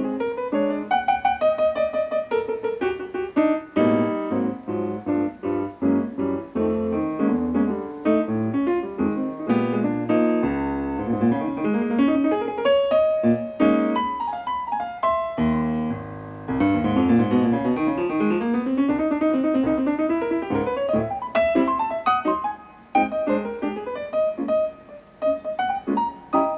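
Background solo piano music, flowing runs of notes rising and falling.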